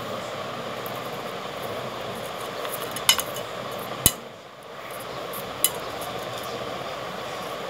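Metal macramé rings clinking against a glass mirror as cord is looped over them: a few sharp clinks, about three, four and five and a half seconds in, the middle one loudest, over a steady background hum.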